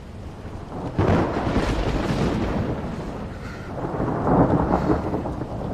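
Thunder rumbling over steady rain, with a rumble breaking about a second in and another swelling about four seconds in.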